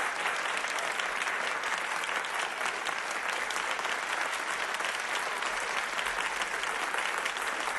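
Audience applauding steadily: a dense crowd of hand claps.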